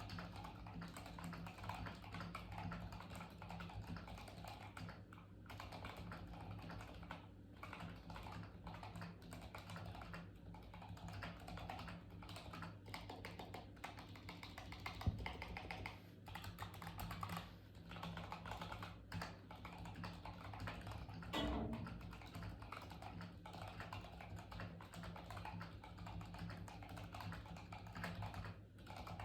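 Fast, continuous typing on a Keychron K8 Pro mechanical keyboard with Tecsee Carrot linear switches, unlubed, and silicone O-rings under every keycap. There are short pauses between bursts of keystrokes, and one keystroke about halfway is sharper than the rest.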